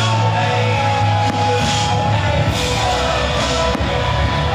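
Rock music with a steady beat, loud cymbal-like hits recurring about once a second.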